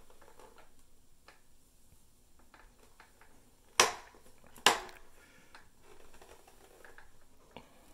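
Two sharp knocks just under a second apart near the middle, from the large hollow plastic Be@rbrick bear figure being handled and turned around, with faint handling rustle around them.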